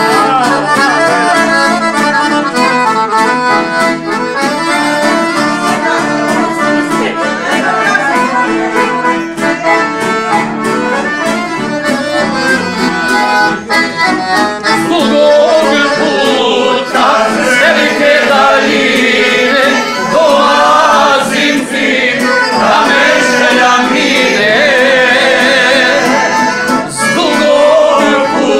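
Accordion playing a lively folk tune, with a small plucked string instrument behind it. From about halfway through, a group of people sings along.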